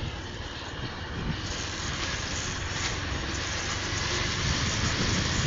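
Steady rushing wind noise on the microphone, growing a little louder and brighter about a second and a half in.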